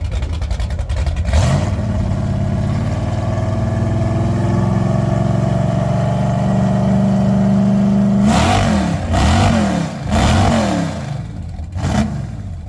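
Car engine with its exhaust cutout open, revved up and held at high rpm for about seven seconds, its pitch creeping higher, then blipped four times in quick succession before dropping back toward idle.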